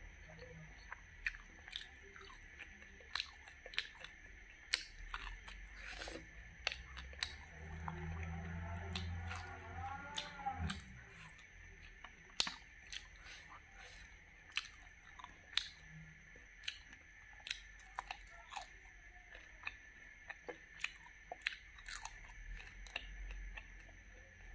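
Close-up chewing of fried wood larvae and rice: a run of sharp, crisp crunches and mouth clicks, about one or two a second.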